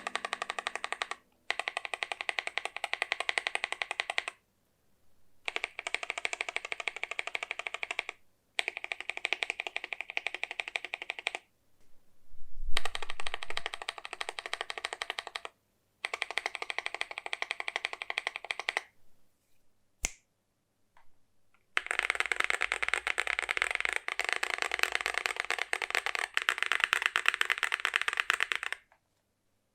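Fast typing on a mechanical keyboard with Dark Warrior heavy tactile switches: dense streams of key clacks in bursts of a few seconds, separated by short pauses. A single low thud comes about twelve seconds in, and there is a lone keystroke in a longer pause shortly after twenty seconds.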